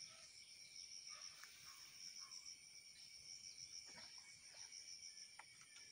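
Faint insect chorus, crickets chirring in a steady high, rapidly pulsing trill, with a few soft clicks and rustles.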